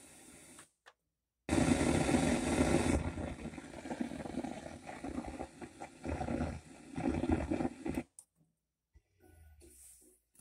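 Hiss and rough static from a Pioneer SX-4 stereo receiver. It cuts out briefly, comes back loud and fluctuating for about six seconds, then drops away to near silence.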